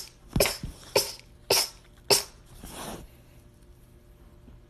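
A person's rapid string of short, sharp sneezes, about five in quick succession roughly half a second apart, then a soft breath out. This rapid-fire run is the sneezer's usual way of sneezing, which she calls completely normal.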